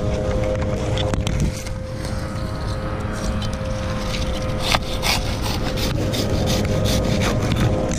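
Hand pruning saw cutting into a palm frond stalk: a quick run of rasping saw strokes through the second half, over a steady low hum.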